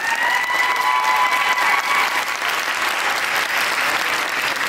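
Rink audience applauding a figure skater's finished programme, with one high-pitched call from the crowd rising and then held for about two seconds.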